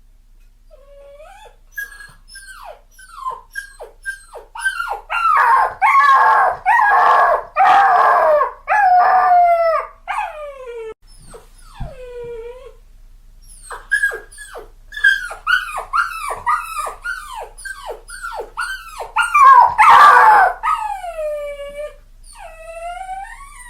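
Puppy crying: a long string of short, high whimpers and whines, most falling in pitch, swelling twice into louder bouts of rapid overlapping cries with a short lull between them.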